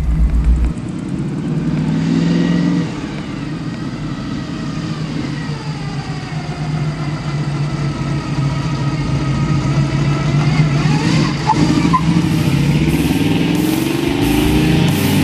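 1967 Camaro's 350 cubic-inch small-block V8 running through headers and a Flowmaster exhaust, revving as the car accelerates away, its pitch climbing a couple of seconds in and again near the end.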